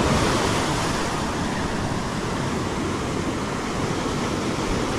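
Surf breaking and washing up a steep sand beach: a steady rush of wave noise that swells and eases slightly.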